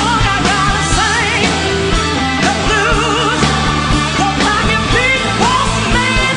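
Live blues band: a woman's lead vocal sung with wide vibrato and sliding, ornamented runs over electric bass, electric guitar, keyboards and drum kit.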